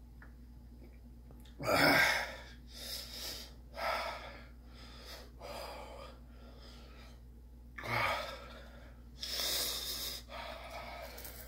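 A man gasping and breathing hard through his mouth in about seven short, noisy bursts, reacting to the burn of an extremely hot chocolate bar. The loudest breath, about two seconds in, carries a brief groan that falls in pitch.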